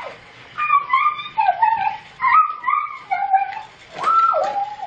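A series of about five short, high-pitched whining vocal sounds, each bending up and down in pitch.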